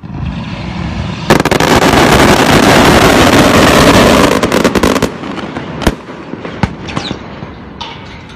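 Colour-smoke fireworks bursting. A dense barrage of bangs and crackling starts about a second in and lasts some four seconds, then thins out to scattered single bangs.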